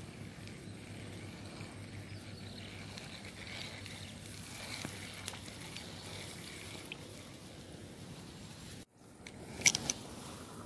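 Quiet outdoor ambience with a faint steady hum and hiss. About nine seconds in the sound cuts out briefly, then come a few loud sharp knocks and rubbing as a hand handles the camera.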